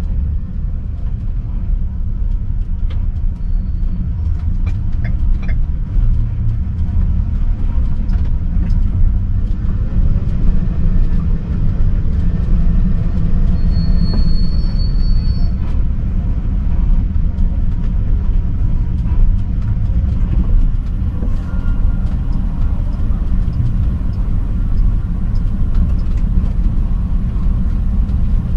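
Steady low rumble of city vehicle traffic, with a brief high-pitched squeal about fourteen seconds in.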